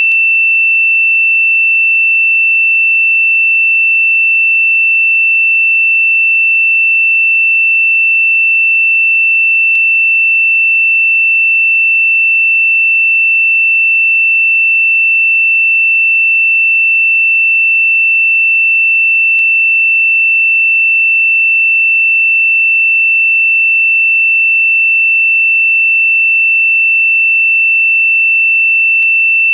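A single steady, high-pitched electronic sine tone, held without any change in pitch or loudness: a generated meditation frequency tone.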